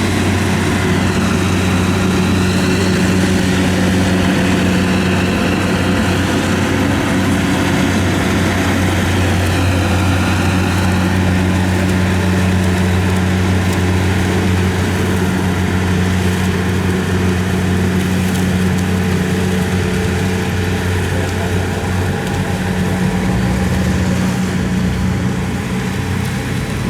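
Combine harvester's diesel engine running steadily at close range with a deep, even hum, a faint wavering whine above it in the first ten seconds or so.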